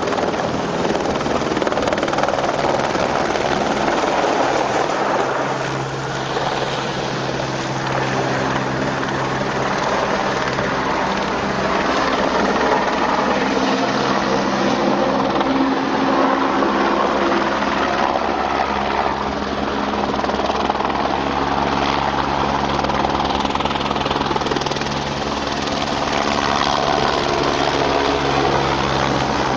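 Helicopter rotor and engine running continuously: a steady wash of noise over a low, even hum, dipping slightly in loudness twice.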